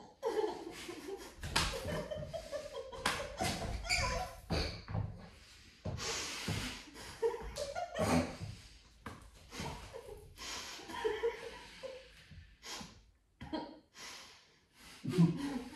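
Muffled laughter and snorting held back behind mouths full of water, with heavy breathing and the sharp slap of a flour tortilla against a face among them.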